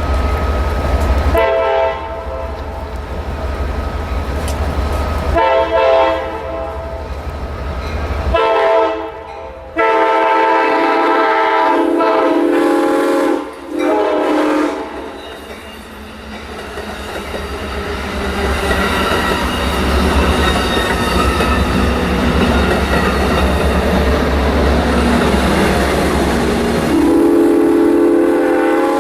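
Locomotive air horn sounding a series of blasts, three short ones and then one long one of about three seconds followed by a short one, over the deep rumble of the diesel engine. The train's wheels then run by on the rails, and the horn sounds again near the end.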